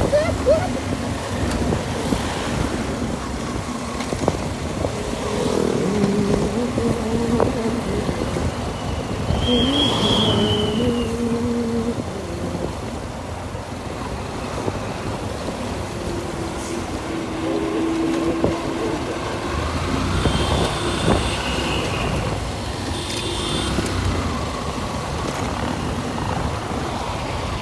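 Road noise from a motorcycle ride in traffic, with wind rumble on the microphone. Passing vehicles add short horn-like tones now and then.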